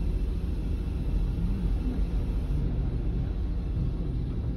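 Diesel engine of a Setra S 431 DT double-decker coach running with a steady low rumble.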